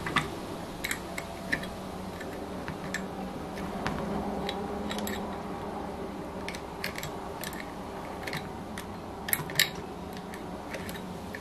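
Light, irregular metal clicks and taps of an open-end wrench working the exhaust header nuts of an O.S. FF-240 Pegasus four-cylinder model engine as they are loosened during disassembly.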